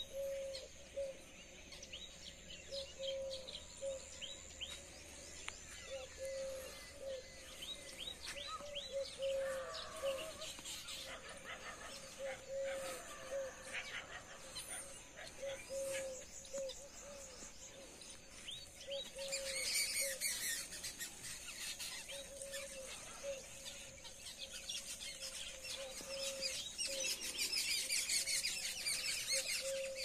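Several birds chirping and calling outdoors, over a short low note repeated about once a second throughout; the high chirping thickens about two-thirds of the way through and again near the end.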